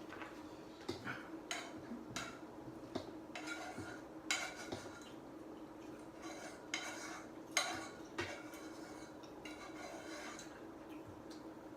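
A metal utensil clinking and scraping against a pot of pasta in irregular strokes, with a faint steady hum underneath.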